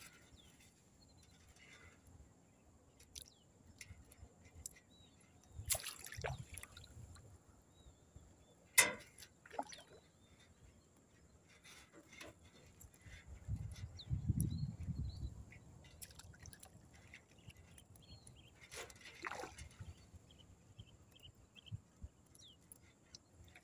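Water splashing and dripping in small irregular bursts as a fishing net with fish is handled at the water's edge. There are scattered knocks, the loudest a sharp knock about nine seconds in, and a low rumble around fourteen seconds. A faint steady high insect drone runs underneath.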